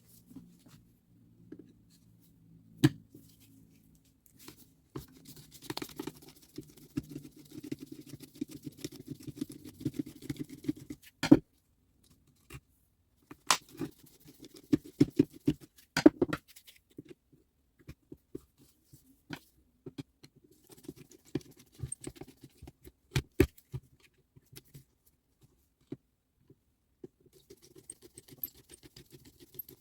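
Hand work on small tool parts: irregular scraping and rubbing, broken by scattered sharp clicks and knocks, the loudest four spread through the middle.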